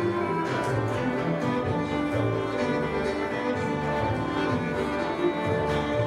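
Live acoustic band playing a Serbian folk-based tune: a violin carries the melody over strummed acoustic guitar and double bass, steady and unbroken.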